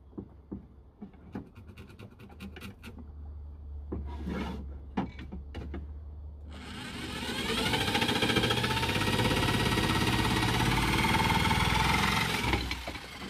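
Wooden bed slats knocking and clicking as they are handled. About halfway in, a corded jigsaw starts and runs steadily for about six seconds, cutting through a pine slat, then stops just before the end.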